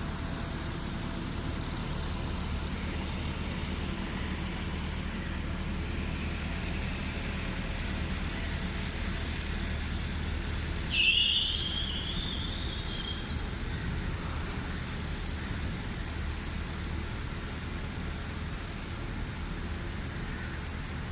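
A single loud, high call with a slightly falling pitch, lasting about a second and a half, partway through, over a steady low hum. The call is typical of a red-wattled lapwing.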